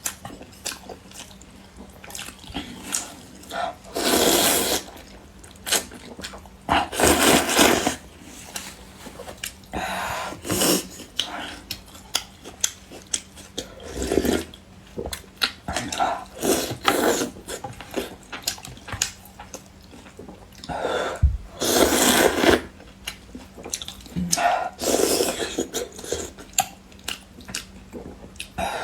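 Close-miked eating sounds: wet chewing with many small clicks, and several loud slurps about a second long.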